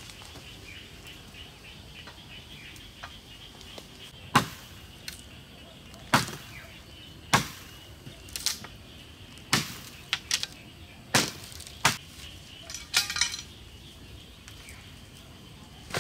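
Chopping: about ten sharp strikes on wood, irregularly spaced at roughly one a second, beginning about four seconds in and stopping a few seconds before the end.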